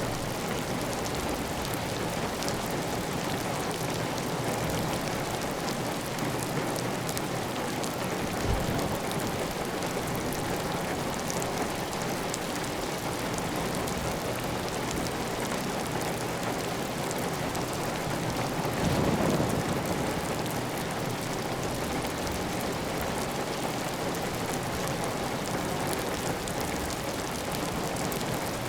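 Heavy, steady rain on a clay-tile roof, with water running off the roof edge. There is a brief louder swell a little after two-thirds of the way through.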